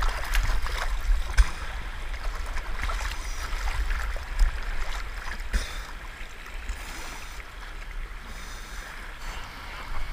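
Seawater sloshing and lapping right at the microphone, with small waves washing over rocks, low rumble and small crackling splashes. There are a couple of sharper splashes, about a second and a half in and again after four seconds.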